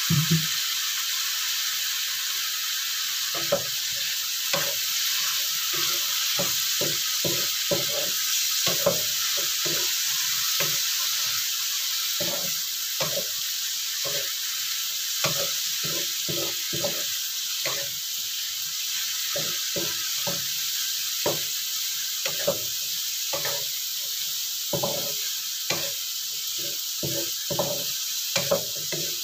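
Diced tempeh, eggplant and anchovies sizzling in a wok with a little water added, while a wooden spatula stirs them with frequent irregular knocks and scrapes against the pan.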